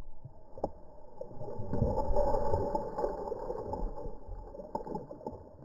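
Water sloshing and lapping against a small fishing boat's hull, swelling for a couple of seconds and then easing, with a couple of light knocks.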